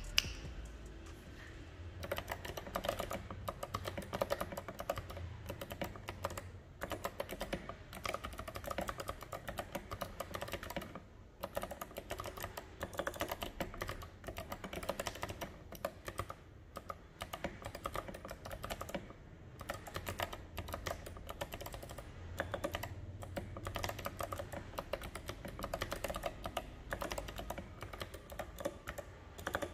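Continuous typing on a mechanical keyboard with Kailh Box White clicky switches and SA-profile keycaps: a rapid, dense stream of key clicks, broken by a few short pauses, the clearest about eleven seconds in.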